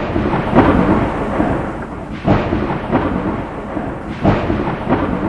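Loud, rumbling thunder-like sound effect for an animated logo intro, surging three times about two seconds apart.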